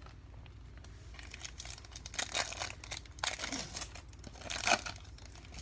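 Shiny foil wrapper of a Panini Prizm basketball card pack crinkling and tearing as it is handled and torn open by hand, in several short irregular rustles, loudest about two and a half seconds in and again near the end.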